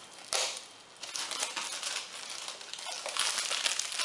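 Plastic shrink wrap being peeled and torn off a new book, crinkling in a string of short bursts.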